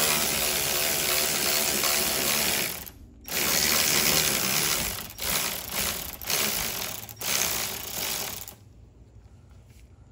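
Cordless electric ratchet spinning a bolt on an N55 engine's oil filter housing through a long socket extension. It runs for about three seconds, stops briefly, runs again, then goes in several short bursts before stopping near the end.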